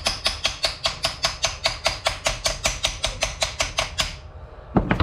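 Air tool rattling on a bolt at the top of a core drill's gear housing: an even, rapid run of sharp strokes, about six or seven a second, that stops about four seconds in. A single loud knock follows near the end.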